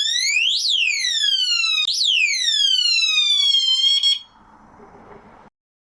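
Electronic door handle alarm siren: a high tone that sweeps quickly up and then slowly down in pitch, twice, then cuts off about four seconds in, leaving a faint hiss.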